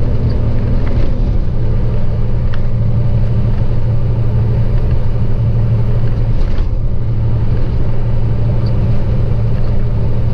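Semi-truck's diesel engine and tyres droning steadily inside the cab while cruising at highway speed, a constant low hum under road noise.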